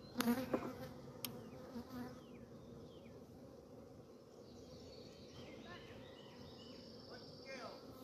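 Honeybees from an opened hive buzzing in a steady hum, the colony disturbed and flying up around the beekeeper. A few sharp knocks sound in the first second or so.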